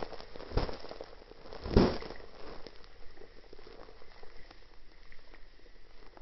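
Norwegian Forest Cat–Persian mix cat grooming itself, with wet licking and crackling close to the microphone. Two louder crackles come in the first two seconds, then fainter scattered clicks.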